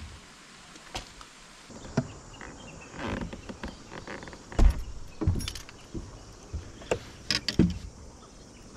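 Irregular knocks and thumps of rods and gear being handled and footsteps on a bass boat's deck, the loudest about halfway through.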